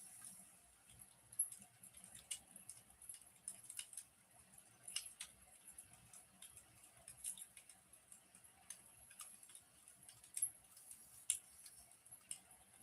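Quiet wood fire crackling: irregular sharp pops and snaps over a faint steady hiss, with a few louder pops about a second in and near the end.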